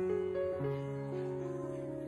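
Background instrumental music: held notes that change pitch about every half second.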